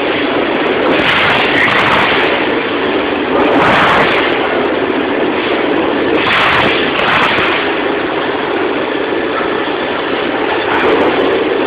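Dual-column band saw running, its blade cutting through a 100 mm stainless steel 304 bar: a steady, dense machine noise with a hum underneath, swelling briefly a few times.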